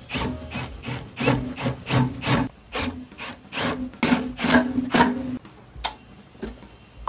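Hand ratchet wrench clicking through short repeated strokes, about two a second, as fasteners are run in; the strokes stop a little after five seconds in.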